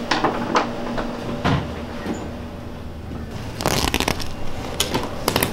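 Carpet being pulled up by hand off the tack strip along a baseboard: a few sharp tearing snaps in the first second and a half, a longer rip about two-thirds of the way through, then more snaps near the end.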